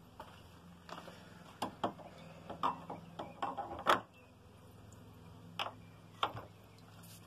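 Irregular sharp metallic clicks and knocks from handling tools and the brushcutter's metal blade and gearhead during assembly. They come in a quick cluster over the first few seconds, the loudest about four seconds in, then two more a little later, over a faint steady low hum.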